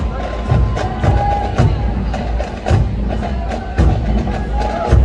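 Military march music with a steady, sharp percussion beat, about two beats a second.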